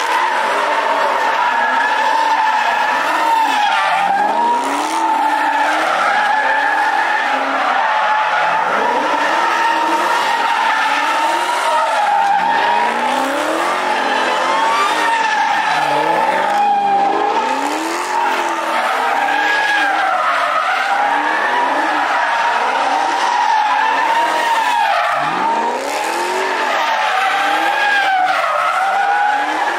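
A car doing donuts: its tyres squeal continuously in one high, wavering screech while the engine revs rise and fall every second or two.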